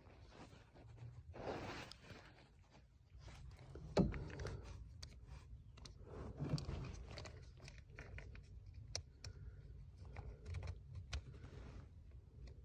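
Faint handling noises as a replacement gas pedal and its parts are fitted under the dash: scraping and rustling, scattered light clicks, and one sharper knock about four seconds in.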